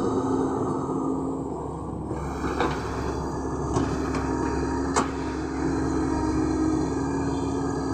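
LiuGong crawler excavator running steadily as it swings and digs, with a steady engine and hydraulic hum and three sharp clanks partway through.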